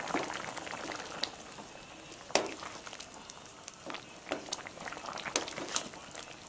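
Pot of split-pea dal with vegetables bubbling at a simmer while it is stirred with a wooden spatula, with scattered sharp clicks, the loudest about two and a half seconds in.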